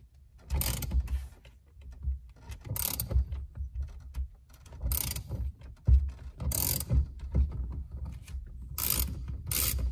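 Socket ratchet clicking in about six short runs, a second or two apart, as it turns the centre bolt of a steering wheel puller to pull the steering wheel off its shaft.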